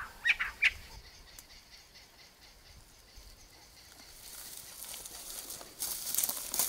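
A bird gives three short chirps at the start, then the open bush goes quiet. In the last couple of seconds a high, crackly rustle builds up and grows louder.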